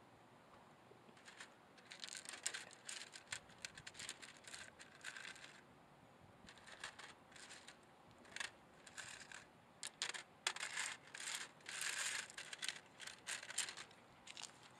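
Quartz crystal points clinking and scraping against one another and the wire mesh of a sifting screen as they are picked up and set down by hand: irregular runs of short, sharp clicks and light rattles that start about a second and a half in.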